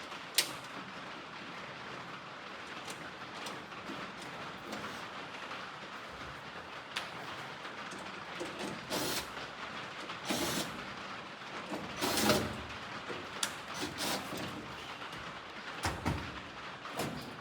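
Hand work on a truck door's window regulator: scraping and rattling of metal parts with a sharp click about half a second in, then scattered knocks and clanks, the loudest about two thirds of the way through.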